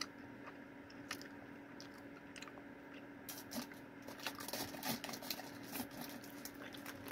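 Faint wet mouth clicks of someone chewing a sticky fruit roll-up, growing more frequent about halfway through, over a steady faint hum.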